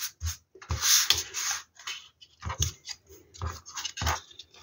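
Paper cut-outs being slid across and laid down on a plastic cutting mat by hand: a series of short rustles and scrapes with soft taps.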